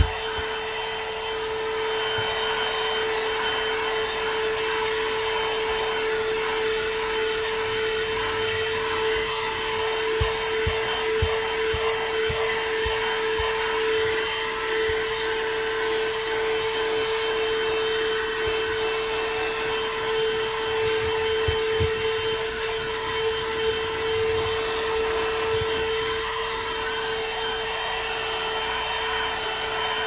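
Handheld Hoto car vacuum cleaner running steadily, a constant motor whine over rushing air, as its nozzle is worked over a carpeted car floor mat. A few soft knocks come from the nozzle bumping the mat.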